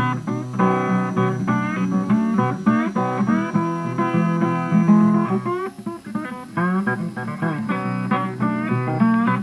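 Background music: a plucked guitar tune, picked notes in quick succession, some with bent or sliding starts.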